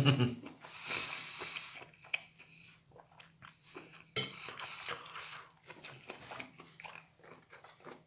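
A person eating microwaved meadow mushrooms: irregular chewing and mouth sounds with sharp clicks and knocks, the loudest at the very start and again about four seconds in.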